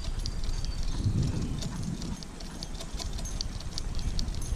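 A dog's claws clicking on asphalt at a steady trot, about three or four light ticks a second, over the low rumble of a dog sulky's wheels rolling on wet pavement.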